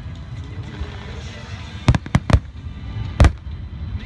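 Aerial fireworks shells bursting: four sharp bangs, three in quick succession about two seconds in and one more near the end, over a steady low rumble.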